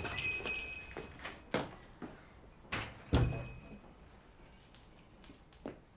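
A shop door knocking shut and its bell ringing, twice about three seconds apart, the second with a heavier thud; faint bell tinkles trail off near the end.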